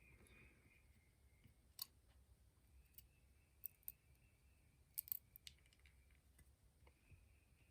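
A few faint, scattered metallic clicks of small lock parts (springs and pins) being handled and set down during disassembly of a pin-tumbler lock, over near silence.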